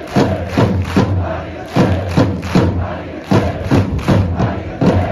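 A large crowd of football supporters sings a player chant in unison. Loud, regular drum beats keep time in a repeating pattern.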